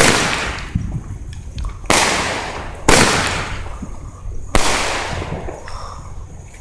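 Fireworks going off: four loud bangs in quick succession, about one to two seconds apart, each trailing off in a long fading tail.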